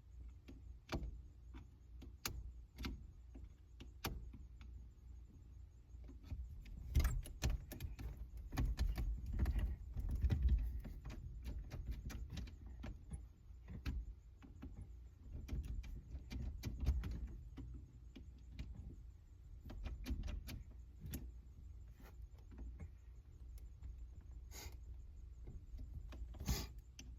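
Scattered clicks, taps and knocks of a screwdriver and hands working at a stubborn ignition switch in a 1977 Ford Thunderbird steering column, over a low rumble of handling noise. The knocking is busiest about a third of the way in, and there is a sharp knock near the end.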